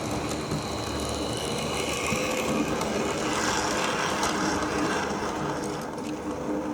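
OO gauge Class 08 model diesel shunter running along the track: a steady motor whine with wheel noise on the rails.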